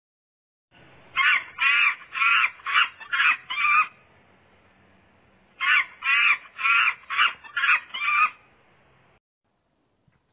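Harsh animal calls in two quick series of six, about two calls a second, with a pause of roughly two seconds between the series, over a faint steady background hiss that cuts off suddenly near the end.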